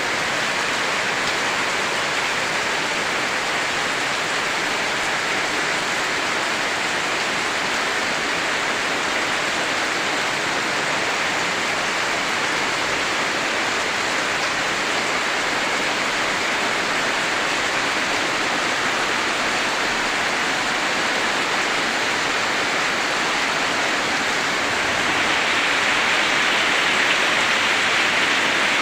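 Steady heavy rainfall, a dense even hiss of rain falling on surfaces, growing a little louder near the end.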